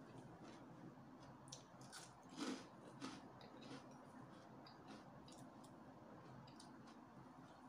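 Faint close-up chewing of stir-fried pancit canton noodles, with scattered small clicks and smacks and a slightly louder one about two and a half seconds in.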